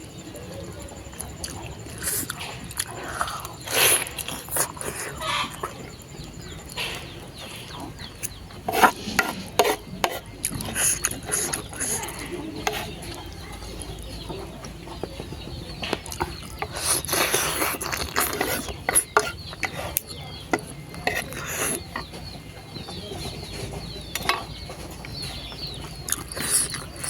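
Eating noodles close to the microphone: irregular slurps and chewing, with short sharp clicks scattered throughout.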